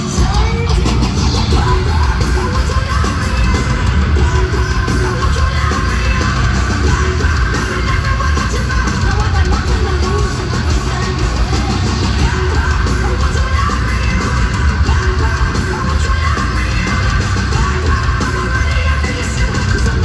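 Heavy metal band playing live at full volume: distorted guitars and a heavy low end of bass and drums, with a yelled and sung vocal over it. Heard from the crowd in an arena.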